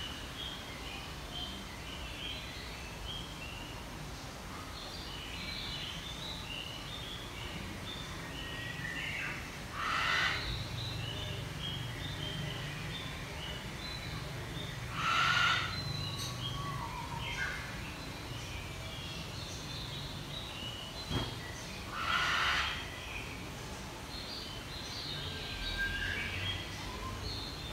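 Small birds chirping on and off over a steady low hum, broken three times by short, louder noisy rushes.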